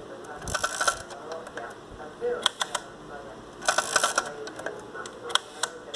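Yashica MAT 124 twin-lens reflex camera's controls clicking as they are turned by hand. Two quick runs of clicks, about half a second in and about four seconds in, with a few single clicks between and near the end.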